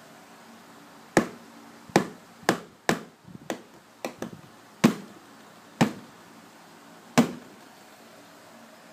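A series of about ten sharp taps or knocks, irregularly spaced over about six seconds, over the steady hum of an electric fan.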